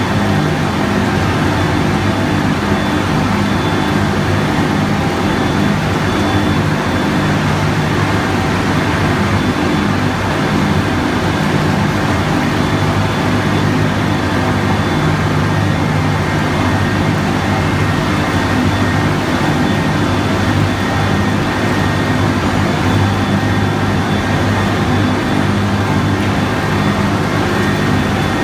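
Göweil LT Master baler-wrapper running: a loud, steady machine drone with a low hum and a thin high whine, unchanging throughout.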